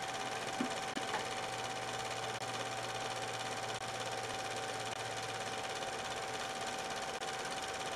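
Film projector running: a steady mechanical whirr and clatter with a constant hum tone, and a couple of small clicks about a second in.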